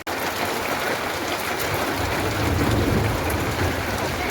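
Rain falling steadily in a dense hiss, with a low rumble joining about two seconds in.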